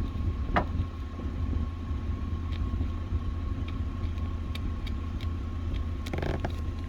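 A few faint scrapes of a small blade scratching the lacquer off a contact pad on the EWS immobilizer module's circuit board, over a steady low background rumble and a faint steady hum.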